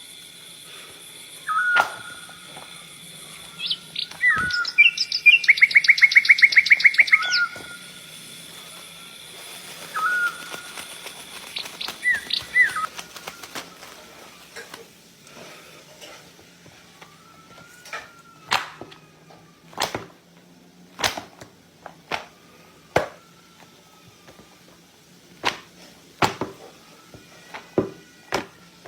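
Bird chirping in short calls, with a rapid trill lasting about two seconds starting about five seconds in. In the second half there are scattered sharp clicks.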